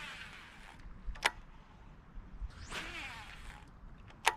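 Fishing rod and spinning reel handled at the water's edge: two falling swishes, each followed by a sharp click.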